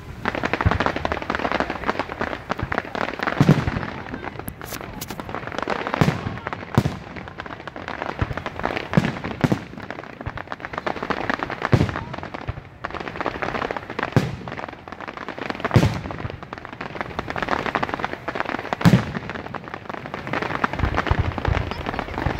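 Aerial fireworks display: shells bursting with sharp bangs every second or few, over a continuous dense crackling.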